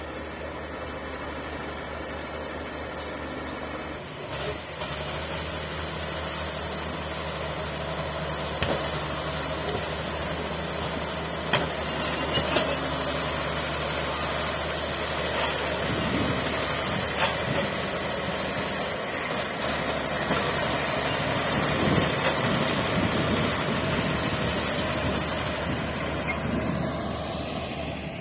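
Shantui bulldozer's diesel engine running steadily, growing louder and heavier about halfway through as it works under load, with a few sharp clanks.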